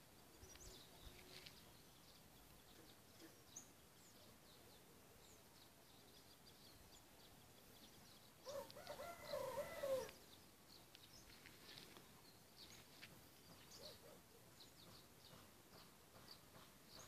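A rooster crows once, a drawn-out call of about a second and a half just past the middle, over faint scattered high chirps in near silence.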